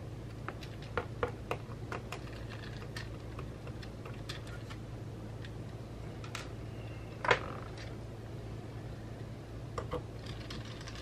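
Scattered small clicks and taps of a Torx screwdriver and small metal parts being worked inside an opened Mac mini (Mid 2011), with one louder click about seven seconds in, over a steady low hum.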